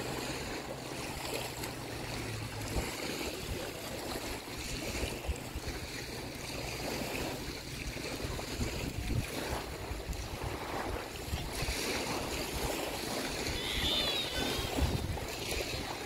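Small waves washing on the shore, with wind rumbling on the microphone: a steady, even wash. A few short, high chirps sound near the end.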